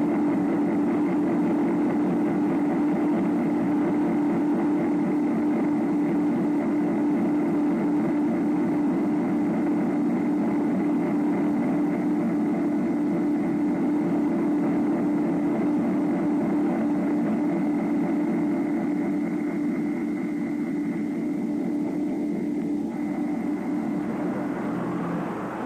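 Airliner engines droning steadily in flight, with a thin high whine above the drone; the sound eases off a little in the last few seconds.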